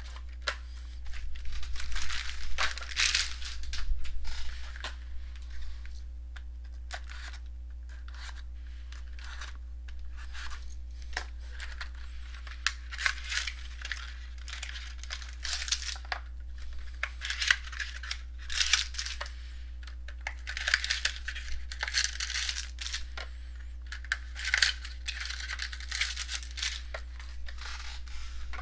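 Plastic wrapping and packaging on a box of baseball trading cards being torn and crinkled in repeated rustling bouts, with scattered sharp clicks and taps of handling.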